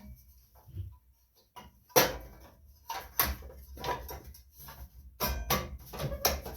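Irregular metallic clanks and knocks of a sheet-metal engine shroud being worked back onto a small Tecumseh engine in a tight fit.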